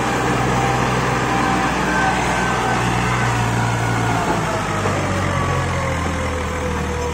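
Diesel tractor engine running hard, pulling an overloaded trolley up a slope. Its steady low hum drops in pitch about four seconds in as the engine is pulled down under the load, with a faint whine sliding slowly downward.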